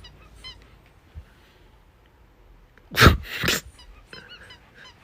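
A dog making short, high squeaky whimpers in quick runs, with a sudden loud double burst about three seconds in.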